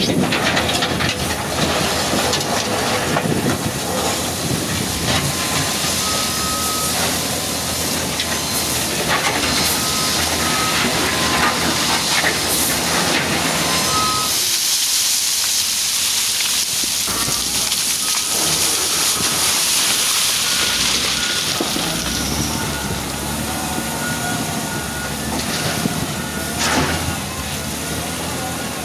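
Wheel loader's diesel engine working, with clanking and scraping of the machine. About halfway through there is a long hissing rush lasting several seconds.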